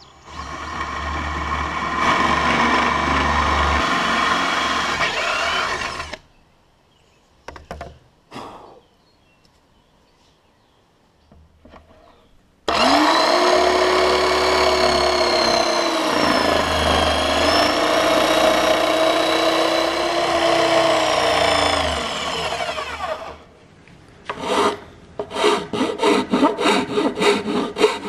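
Cordless drill boring a starter hole through particleboard for about six seconds, then after a short pause a Skil jigsaw cutting out an opening in the board, its motor pitch dipping briefly under load. Near the end, quick rhythmic strokes of a hand file rasping the cut edge.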